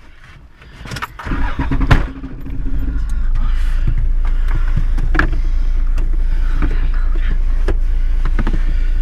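A sharp knock about two seconds in. Then a four-wheel drive's engine starts and settles into a steady, even idle.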